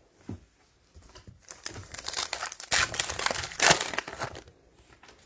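Plastic card packaging crinkling and rustling in the hands as trading cards are handled, loudest in two surges near the middle.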